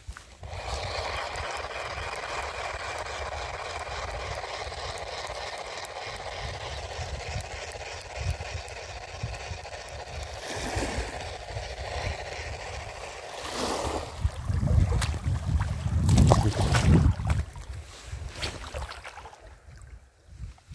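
A small boat's motor running steadily while trolling, with water noise around it. About two-thirds of the way through, a heavier low rumble of wind on the microphone joins in, then eases off near the end.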